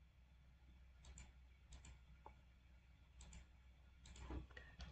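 Near-silent room tone with a few faint, scattered clicks from a computer mouse and keyboard, in ones and small groups about a second apart.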